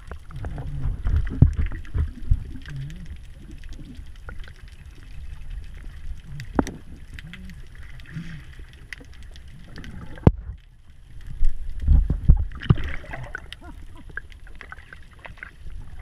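Sea water sloshing and splashing around a handheld action camera as it dips in and out at the surface while snorkelling: a constant low rumble with scattered sharp knocks, and louder splashes about a second in and again near the twelve-second mark.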